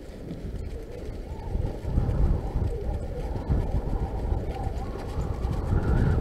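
Riding noise from a mountain bike on a leaf-covered dirt trail: wind rumbling on the microphone and tyres rolling. It gets louder about two seconds in and again near the end.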